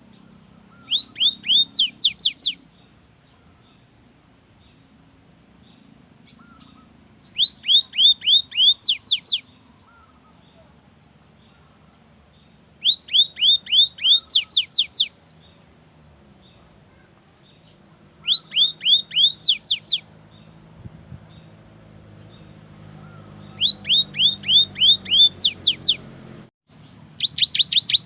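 Cinereous tit (gelatik batu) singing: six bursts of rapid, high, downward-sweeping notes, each burst lasting one to two seconds and coming about every five seconds.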